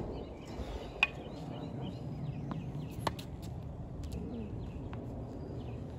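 Two sharp taps of a tennis ball, about a second and three seconds in, over a low outdoor background with faint bird chirps.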